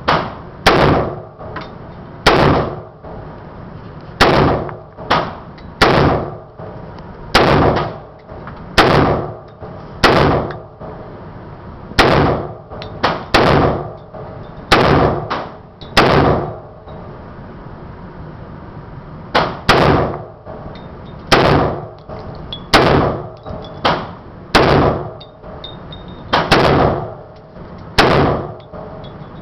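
Short-barrel AR-15 rifle fired in slow semi-automatic shots, about twenty sharp reports spaced irregularly a second or so apart, each followed by a brief ringing echo, with a pause of a few seconds midway.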